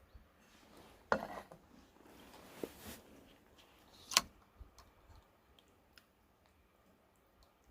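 Small gear being handled by hand: a knock about a second in, a couple of seconds of rustling and scraping, a sharp click just after four seconds, then a few light ticks.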